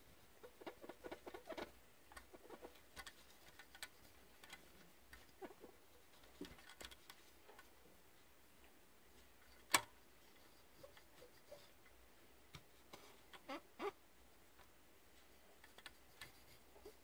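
Alcohol-soaked cotton swab scrubbing old thermal compound off a laptop processor chip: faint, irregular scratchy rubbing and small clicks, with one sharper click about ten seconds in and a few more a little after.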